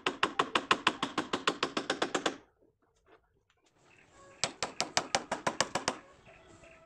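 Rapid, evenly spaced knocks on wood, about seven a second, in two runs with a short pause between: hammering on the planks of a wooden boat under construction.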